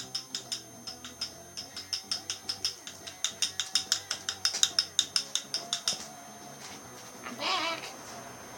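Ratchet wrench clicking in a fast even run, about six clicks a second, louder toward the middle and stopping about six seconds in. A brief rasping sound follows near the end.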